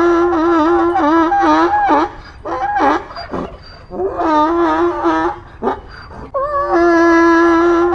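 Donkey braying: a long held, wavering call that breaks into rising and falling cries, then starts again about six and a half seconds in.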